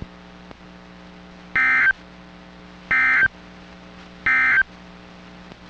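Emergency Alert System end-of-message signal on NOAA Weather Radio: three short, identical screeching digital data bursts about a second and a half apart, over a steady low hum. They mark the end of the warning broadcast.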